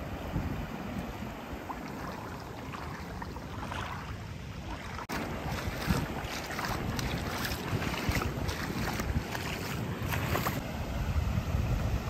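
Shallow creek water running over limestone riffles, with wind buffeting the microphone.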